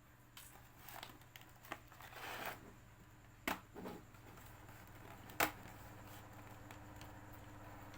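Hands and a tool working on a laptop's plastic case during disassembly: scattered sharp clicks, two of them loudest about three and a half and five and a half seconds in, with a short scrape shortly before.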